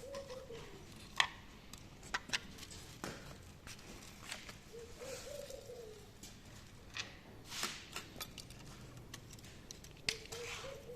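Scattered metallic clicks and knocks of hand tools and engine parts being handled during an engine teardown. A pigeon coos three times in the background, about every five seconds.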